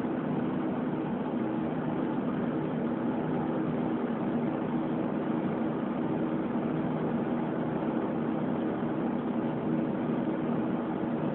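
Steady drone of a moving vehicle's engine and road noise, heard from inside the vehicle, holding an even level throughout.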